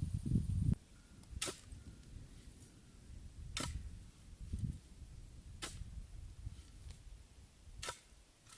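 Four sharp knocks, about one every two seconds, over a low rumble that is loudest in the first second.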